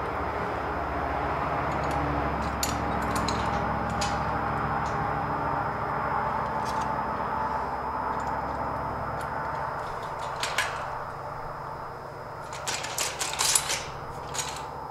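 Scattered metal clicks and clinks from a folding steel tire step as its adjuster pins and bars are handled, then a quick run of louder clinks near the end as the step is lifted. Under them is a steady rushing background noise that drops away toward the end.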